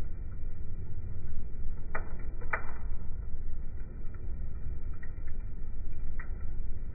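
Coal fire flaming in a barbecue grill: a steady low rumble with a few sharp crackles, two close together about two seconds in and one more about six seconds in.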